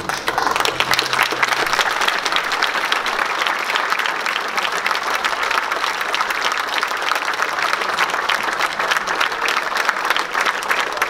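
Large crowd applauding steadily, many hands clapping at once; it starts abruptly and holds.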